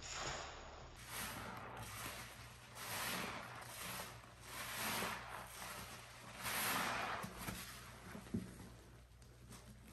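Wet, squishing sponge squeezes in thick pine-cleaner paste foam, as bare hands squeeze a suds-soaked sponge and press the foam, about one squeeze a second. The loudest squeeze comes about two-thirds of the way through.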